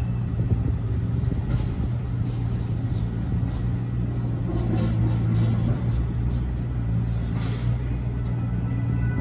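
City traffic noise in an open square: vehicles running by with a steady low rumble under a constant hiss.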